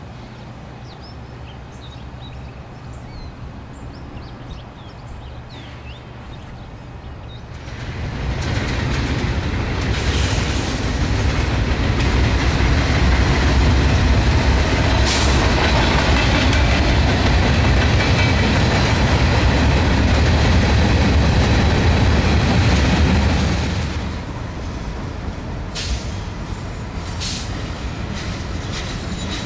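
Norfolk Southern diesel freight locomotive passing close by, its engine and steel wheels running loud for about fifteen seconds. It is followed by freight cars and a bay-window caboose rolling past more quietly, with a couple of sharp clanks. For the first seven seconds or so there is only a low steady hum.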